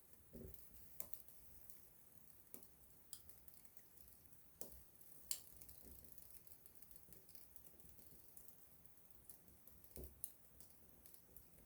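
Small wood campfire crackling faintly, with sparse, irregular pops and snaps.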